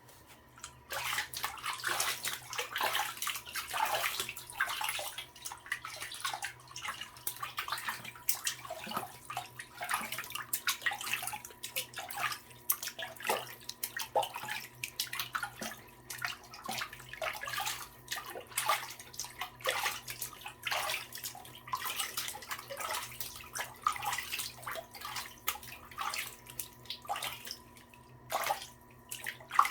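Water running and splashing into a bathtub of water, starting about a second in: an uneven stream of splashes and trickles.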